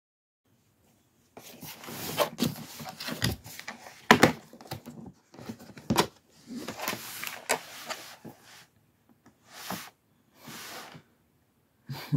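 Handling noise from a tool set being gone through: irregular rustling and scraping with sharp clicks and knocks, the loudest knocks about four and six seconds in, then two short swishes and a last knock near the end.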